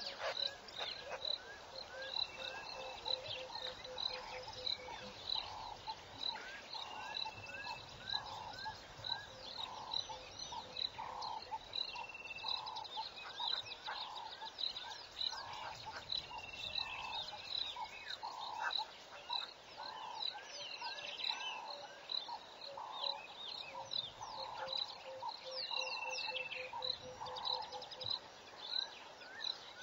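A dense chorus of calling animals. Several different calls repeat and overlap: a high pip several times a second, a lower call about once a second, a quick run of short notes that comes twice, and now and then a short falling whistle.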